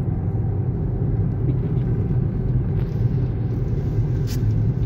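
Road noise heard from inside a moving car: a steady low rumble of engine and tyres.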